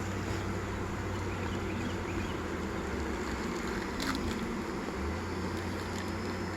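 Honey bees buzzing steadily around an opened hive, over a steady low rumble, with one short knock about four seconds in.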